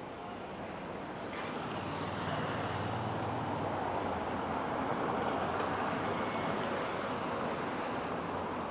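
Road traffic going by: a steady rush of engine and tyre noise that swells over the first couple of seconds and then holds.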